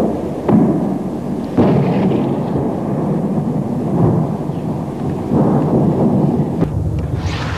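Artillery shelling: continuous low rumbling broken by a series of heavy booms every second or two, with a sharper, brighter blast near the end.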